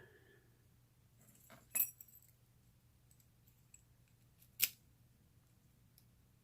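Brass padlock parts handled by hand, giving a few light metallic clinks: a small cluster just under two seconds in and one sharp clink about four and a half seconds in.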